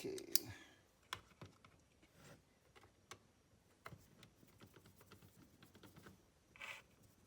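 Scattered light clicks and taps of hand tools being handled as a T10 Torx bit is picked out and fitted to the driver, with one sharper click just after the start and a brief scrape near the end.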